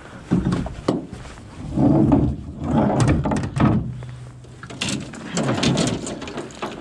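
Knocks, bumps and rubbing of close handling as the camera is moved and set up inside a metal boat, in uneven clusters across the few seconds.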